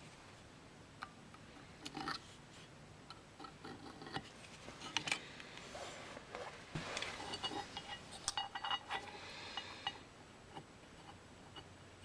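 Small metal tools and workpieces being handled on a workbench: scattered clicks and taps, then a busier stretch of metallic clinking and clatter with a short ring to it in the second half.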